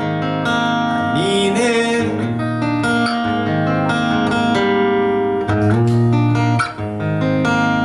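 Guitar playing an instrumental passage of a song live, with chords struck several times and left ringing between strokes. A brief rising glide in pitch comes a little over a second in.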